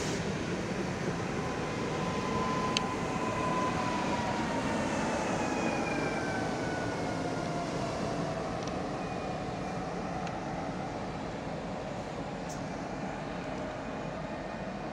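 ED78 electric multiple unit running along the track, its wheels rumbling on the rails, while the traction-motor whine glides slowly down in pitch as the train slows.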